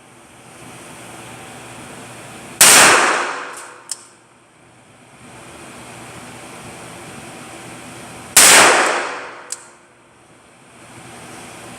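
Two gunshots about six seconds apart, each echoing and dying away over a second or so in an indoor shooting range. Each is followed about a second later by a small sharp click, over a steady background hiss.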